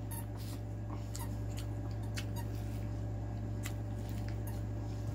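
Close-miked eating from a sauce-covered crab body: scattered small wet clicks and smacks of lips, teeth and shell, over a steady low hum.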